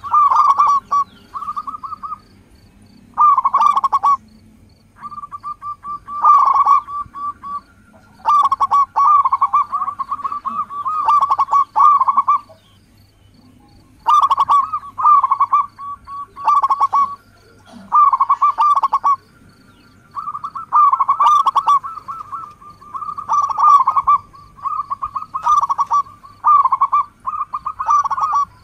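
Zebra dove (local perkutut) cooing: over a dozen phrases of quick, stuttering coos, each a second or two long, one after another with short pauses between.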